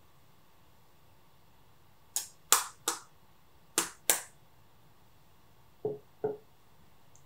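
Eggs being handled and set down among glass and steel bowls on a wooden counter. Five sharp clicks come a couple of seconds in, then two duller knocks near the end.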